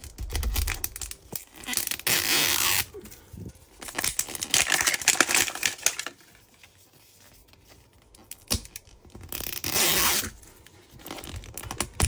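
Wrapping on a Mini Brands capsule ball being torn and peeled open by hand, in several bursts of tearing and crinkling with a lull in the middle.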